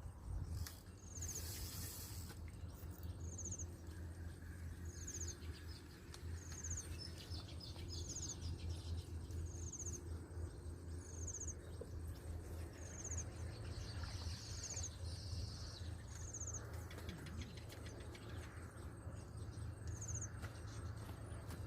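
A bird calling outdoors, repeating a short high note about every one and a half seconds, over a steady low rumble.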